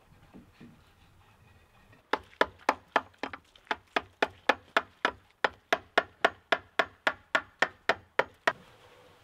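Hammer blows in a quick, even rhythm of about four a second, each strike sharp with a slight ring. They start about two seconds in and stop shortly before the end.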